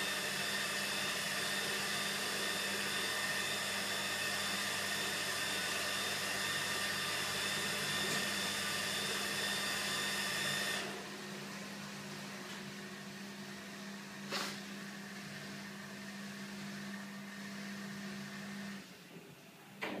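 Sammic SL1200BP hood-type commercial dishwasher running its final rinse: a steady motor and pump whine. About eleven seconds in it drops to a quieter hum as the cycle winds down, with a single click partway through. The hum stops near the end, followed by a short knock.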